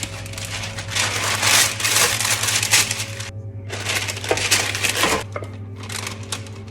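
Background music under repeated bursts of crunching, rustling noise from food preparation, each lasting one to two seconds.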